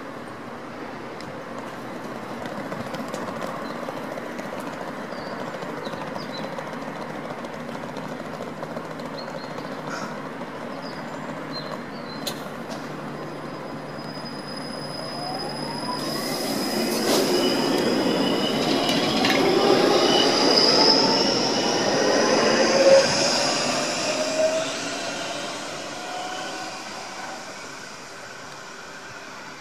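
Stuttgart Stadtbahn DT8.11 light-rail car first standing with its equipment running steadily, then pulling away about halfway through. An electric whine rises in pitch with high squealing tones, grows loud and fades off.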